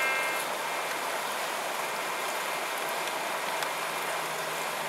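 Steady rushing noise of river water. A metal detector's tone trails off in the first moment.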